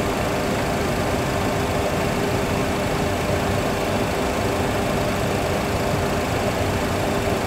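Steady cockpit engine and airflow noise from a Boeing 737 full flight simulator on final approach, an even rush with a faint constant hum and no change in level.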